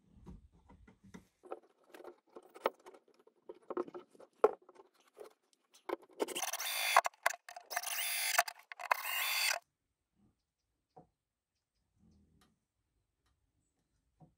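Small knocks and scrapes of pieces of timber being handled and fitted. Then a cordless drill-driver runs loud and harsh in three short runs, driving screws into the softwood, and cuts off suddenly.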